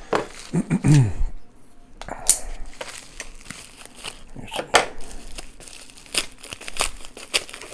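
Thin plastic packaging bag crinkled and torn open by hand, a run of sharp crackles and rips.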